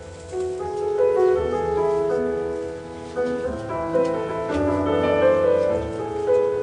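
Solo grand piano playing a classical piece, many notes ringing on over one another, the playing swelling and easing in waves of a second or two.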